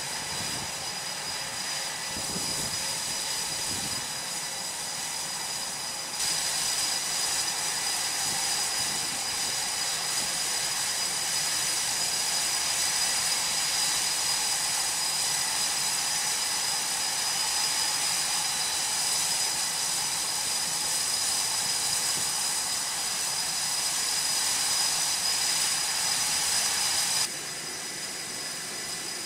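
Jet aircraft engines running: a steady whine with several high whistling tones over a rushing noise, stepping louder about six seconds in and dropping back near the end.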